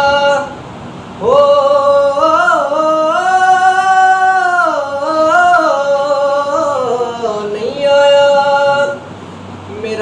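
A man singing a Punjabi Sufi kalam unaccompanied, in long drawn-out notes. After a short break, a long ornamented phrase climbs to a held high note and winds back down, and another long note is held near the end.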